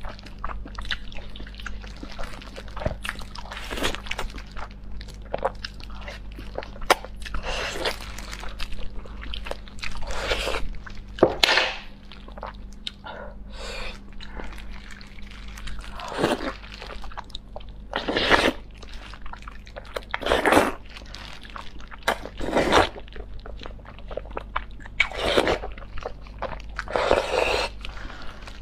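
Close-miked wet chewing, biting and sucking on braised beef knee bones with tendon, in irregular bursts of varying loudness, played at double speed.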